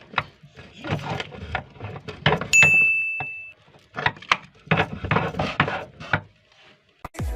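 Meat grinder crushing hard-candy lollipops: bursts of cracking and crunching that come and go. A high, steady squeal lasting about a second cuts in about two and a half seconds in.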